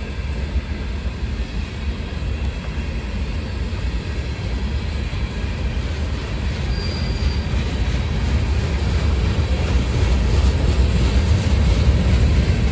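Freight train cars rolling past on the near track: a steady rumble and rattle of steel wheels on rail that grows gradually louder toward the end.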